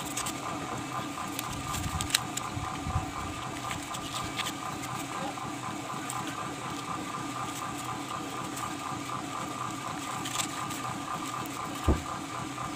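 A steady mechanical hum with a fast, regular pulse, with a few sharp clicks from the cardboard strips being pushed between the tyre and the rim.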